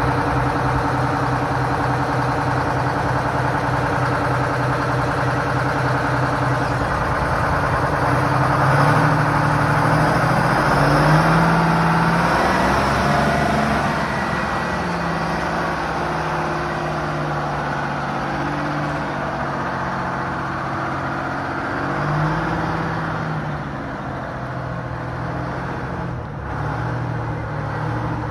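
Large diesel engine of a Euclid R-35 off-highway water truck running at idle, its revs rising and falling about a third of the way in and again about three quarters of the way in.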